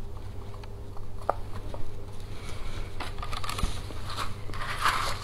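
Spoon stirring granola moistened with yogurt in a bowl: a few small clicks, then dense crunchy scraping and crackling from about two seconds in.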